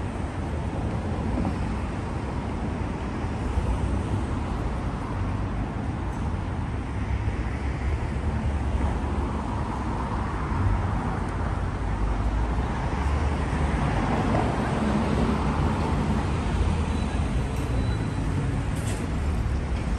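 Steady road traffic on a busy city avenue, the rumble of cars passing and rising and falling.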